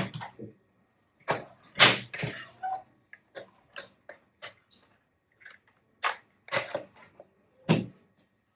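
Irregular clicks, knocks and rustles from a plastic toy machine gun and its packaging being handled, a dozen or so short sharp sounds at uneven spacing.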